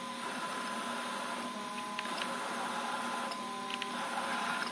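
DC servo motors of a CNC router, run by GeckoDrive servo drives, jogging the axes: a steady electrical hum with a couple of short whines as the moves start and stop.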